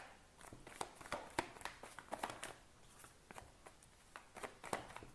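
A deck of tarot cards shuffled by hand: faint, irregular taps and slides of cards against each other, several a second.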